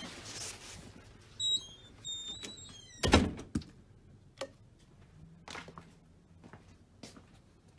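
A door being opened and moved: a few short high squeaks, then a loud thud about three seconds in, followed by several lighter knocks.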